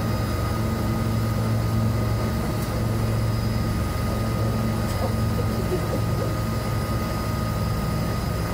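de Havilland Beaver floatplane's engine running steadily at low power, heard from inside the cabin, as the plane taxis on the water.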